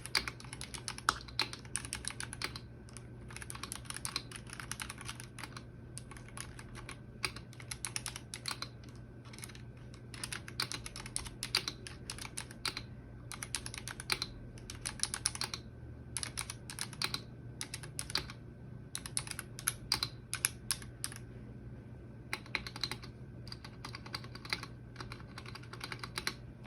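Typing on a Gamakay K61 Pro mechanical keyboard fitted with Gamakay Crystal switches: runs of quick keystrokes broken by short pauses.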